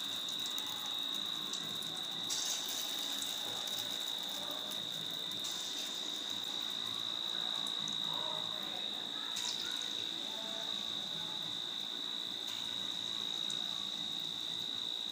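Taler bora (palm-fruit batter fritters) deep-frying in a wok of hot oil, a steady sizzle. A steady high-pitched trill sits over it.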